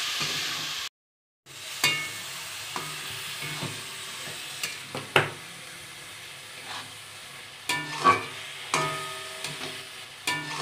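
Spatula scraping and knocking against a metal kadai as grated coconut and jaggery are stirred over a gas flame, with a soft sizzle beneath. The sound drops out completely for about half a second about a second in, and several sharp knocks of the spatula on the pan come later.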